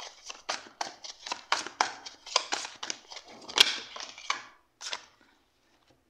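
Tarot cards being shuffled and handled: a quick, irregular run of card flicks and snaps, several a second, that stops about five seconds in.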